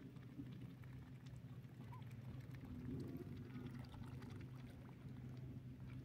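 Faint water sounds of ducks swimming and dabbling in the shallows, small splashes and lapping over a low steady hum.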